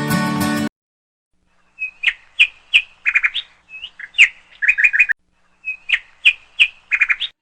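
A songbird singing in three bouts of sharp chirps and quick trilled notes, with short gaps between bouts. Guitar music cuts off abruptly under a second in, before the birdsong starts.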